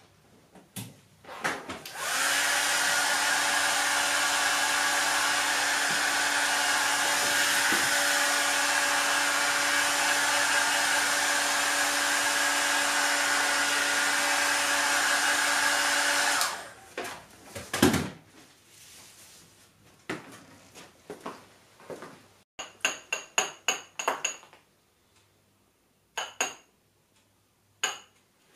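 Hair dryer running steadily with a motor hum for about fourteen seconds, then switched off. Afterwards a knock and a quick run of light clicks and taps.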